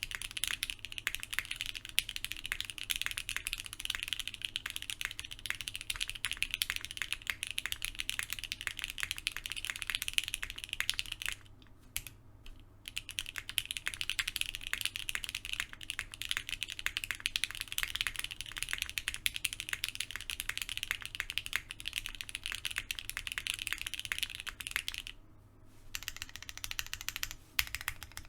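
Fast, continuous typing on a TGR x Monokei Tomo SE mechanical keyboard with Gateron CJ linear switches, a polycarbonate plate and O-ring mount, a dense stream of key clacks. The typing pauses briefly twice, near the middle and near the end.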